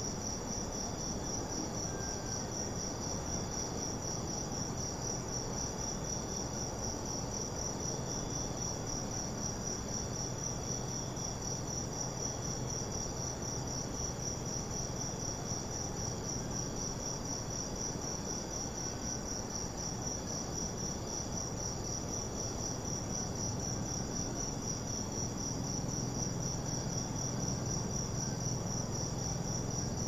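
Crickets chirping in a steady, rapidly pulsing high trill, over a low even wash of sea waves.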